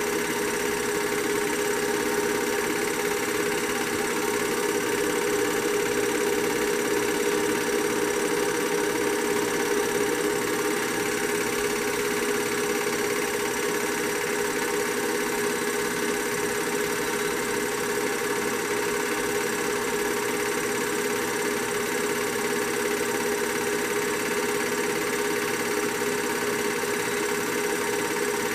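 Steady mechanical hum of a film projector running, with a constant pitch and even hiss.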